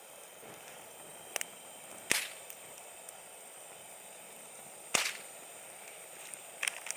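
Three sharp snaps or cracks, a second or three apart, with a couple of fainter clicks near the end, over a faint steady hiss.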